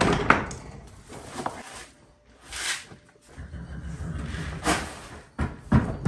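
Horse-stall door and latch knocking and clattering: a few sharp knocks near the start and again near the end, with a short hissing rush in between.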